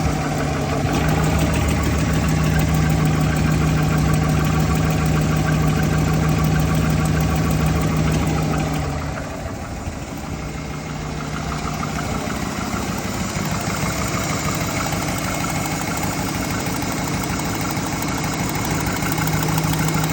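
Car engine idling with a rapid, repetitive ticking-knocking noise that the owner cannot place: a camshaft fault, lifter tick or piston slap. The steady hum drops away about nine seconds in and comes back near the end.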